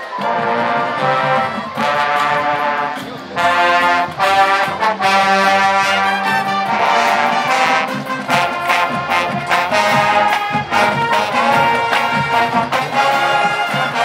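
High school marching band playing, led by the trombones and other brass in loud held chords, with sharp percussion hits coming more often in the second half.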